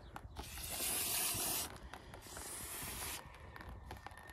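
Aerosol cleaner spray can hissing in two bursts, the first about a second and a half long, the second about a second, as it is sprayed onto a fuel filter clogged with sediment to flush it out.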